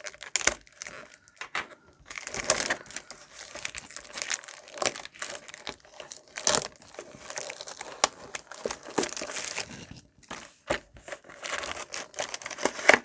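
Plastic wrapping crinkling and tearing in irregular bursts as a trading card box is unwrapped and opened by hand.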